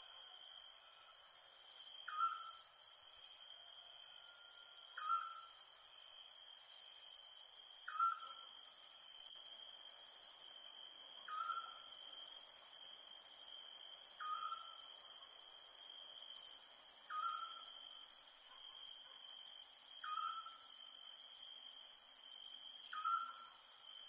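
A night bird repeating one short, clear note about every three seconds, eight calls in all, over a steady high-pitched chorus of crickets.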